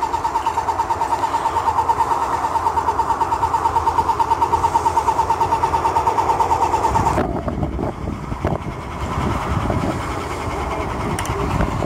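Electric paint sprayer's pump running with a rapid, even pulsing buzz that cuts off suddenly about seven seconds in, leaving only low rumbling.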